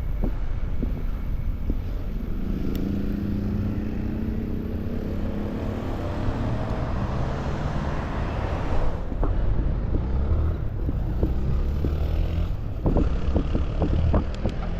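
A motor vehicle's engine passes close by for several seconds, about two seconds in, over steady wind and road rumble from riding a bicycle.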